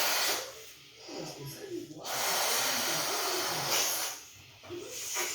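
Air rushing through the neck of a rubber balloon in two long hissing blasts, the second starting about two seconds in and lasting about two seconds.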